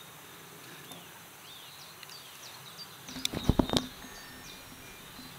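Birds chirping over a quiet outdoor background, with a quick run of knocks and clicks about three and a half seconds in.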